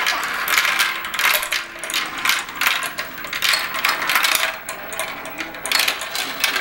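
Marbles rolling and clattering down a plastic marble-run track: a quick, uneven run of clicks and rattles as they drop from piece to piece, with a short quieter spell past the middle.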